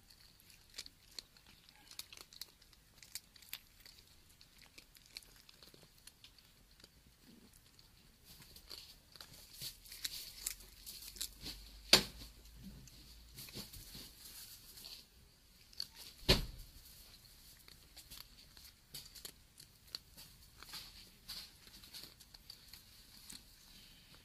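Cats jostling right against the microphone, with many small clicks, crunches and rustles and a faint steady high hum. Near the middle come two loud knocks about four seconds apart, the second with a low thud.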